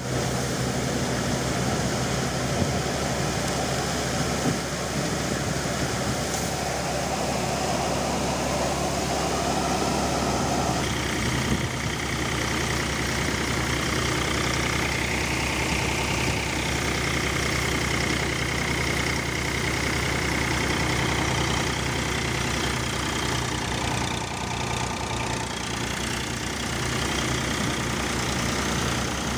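Tractor-driven Jangeer thresher running at threshing speed, powered by an Eicher tractor's diesel engine: a steady mechanical drone under a constant engine hum as crop is fed through and chaff is blown out. About eleven seconds in, the sound changes and a steady high whine comes in.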